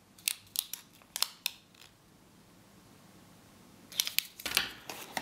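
Plastic packaging and accessories being handled: a few sharp clicks and snaps in the first two seconds, a quiet stretch, then a rush of crinkling and clicking near the end.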